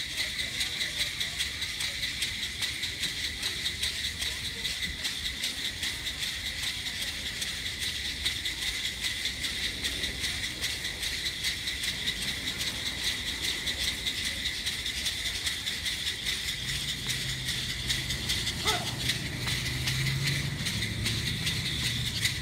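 Steady, rapidly pulsing chirring of insects, with a low hum coming in during the last few seconds.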